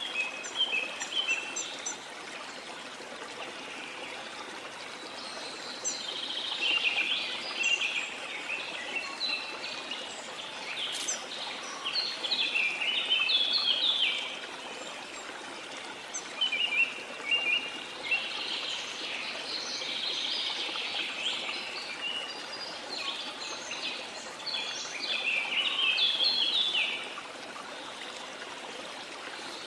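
Small birds chirping and singing in bursts of quick, repeated short notes over the steady rush of running water.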